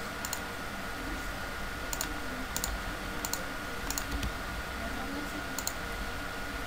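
Scattered clicks of a computer mouse and keyboard, a few sharp clicks spaced irregularly, some in quick pairs, over a steady background hiss with a faint constant tone.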